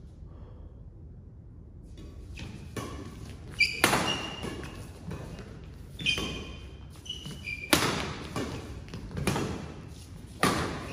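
Badminton rally: sharp racket strikes on the shuttlecock, about one every second or two, echoing in a large hall, with brief squeaks of court shoes on the mat.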